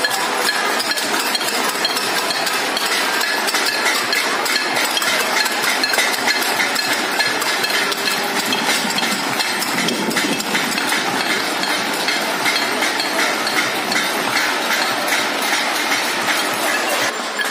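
Crowd on balconies clapping and banging steel plates and utensils, a dense, unbroken din of claps and metallic clangs. A held tone sounds briefly about eight seconds in.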